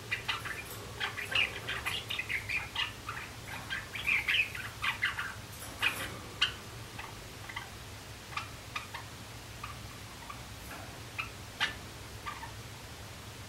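Young male Java sparrow practising its song: a quick run of short clicking and chirping notes for about six seconds, then scattered single clicks.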